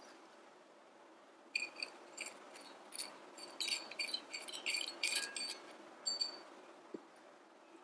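Light metallic clinks and scrapes with a short ringing, from a miniature stainless steel bowl knocking on a miniature pot's rim while thin wooden sticks push dried anchovies from the bowl into the water. The clinks come in a quick irregular run from about a second and a half in for some four seconds, with one more a little later.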